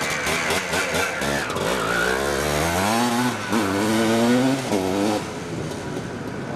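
Vintage two-stroke motocross motorcycle pulling away from the start, its engine revving up through the gears: the pitch rises, drops at a gear change about three and a half seconds in and again near five seconds, then the sound fades as the bike rides off into the distance.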